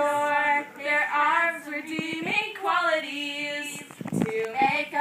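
Young women singing in phrases with long held notes and short breaks between them.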